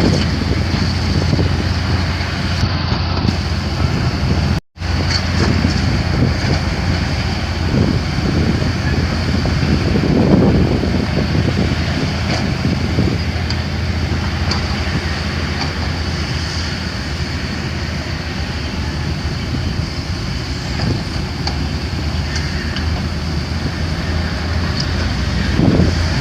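Heavy diesel machinery such as an excavator or dump truck running steadily under a constant low hum, with a brief total dropout about four and a half seconds in.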